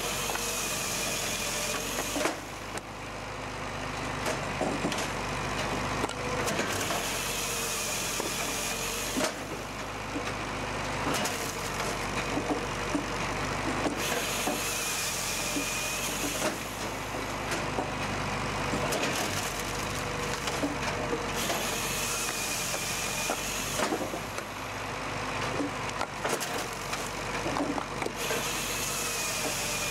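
Tajfun RCA firewood processor, driven by a tractor, running steadily. Its saw cuts through a log about every seven seconds, each cut a few seconds of high-pitched sawing noise, with knocks and clatter of wood in between.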